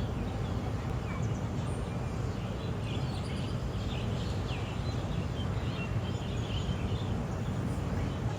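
Birds chirping in short, quick calls over a steady low rumble of outdoor background noise.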